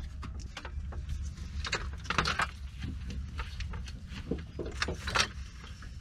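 Clicks, knocks and rattles from a portable folding solar panel's metal frame as it is opened and its stand legs are set out, the loudest about two seconds in and about five seconds in, over a steady low rumble.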